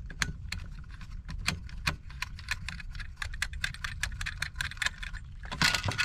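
Rapid metallic clicking and rattling as a low-voltage transformer and its wires are pulled loose from a tangle of wiring and flexible metal conduit, over a steady low hum. The handling gets louder near the end.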